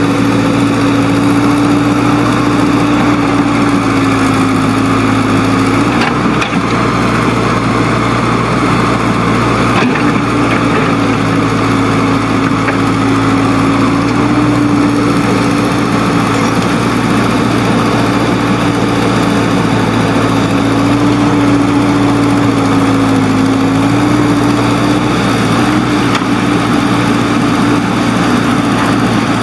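Diesel engine of heavy earth-moving equipment running steadily, its pitch shifting slightly a few times as the engine speed changes.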